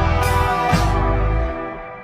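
Sped-up song with guitar and drum hits, playing at double speed, fading out near the end.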